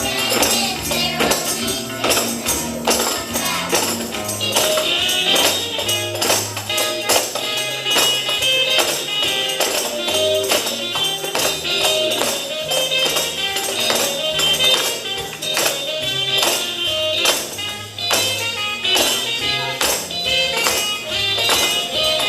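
Upbeat instrumental holiday music with a moving bass line, driven by tambourines shaken and struck in a quick steady rhythm. A brighter high melody comes in about four seconds in.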